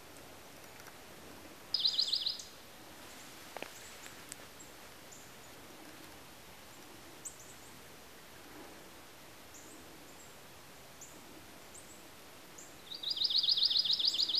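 A songbird's rapid high trill, heard twice: a short one about two seconds in and a longer one near the end. Between them are faint woodland ambience and scattered soft high chirps.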